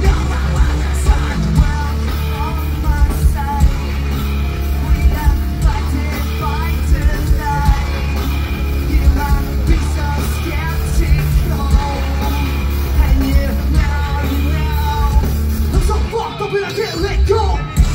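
A rock band playing live, with electric guitars, bass guitar and drums under a vocalist singing into a microphone, heard from the crowd with a heavy low end. Near the end the deep bass thins out briefly before the full band comes back in.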